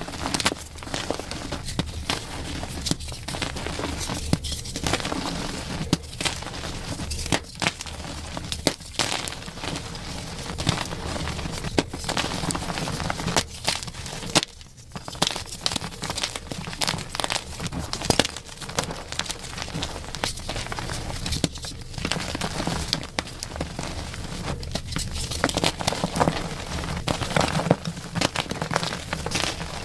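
Chalk being crushed and crumbled, a dense run of crunching and crackling with a short lull about halfway.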